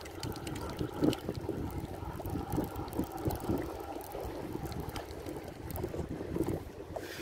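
Sea water sloshing and lapping against a concrete seawall, with wind on the microphone and small ticks and taps throughout.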